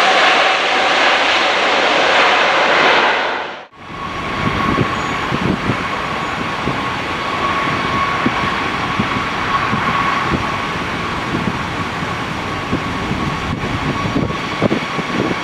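Wide-body jet airliner engines, loud for the first few seconds, then cutting off abruptly. After the break, a steady engine whine from a jet goes on under gusty wind buffeting on the microphone.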